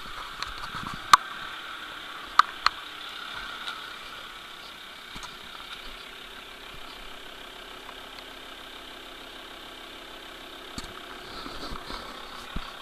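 Car engine idling with a steady running sound, with a few sharp clicks in the first three seconds.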